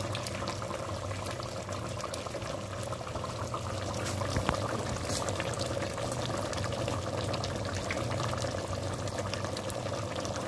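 Chicken curry simmering in a pot on a gas stove: a steady bubbling and hiss with a low hum underneath and a few faint clicks.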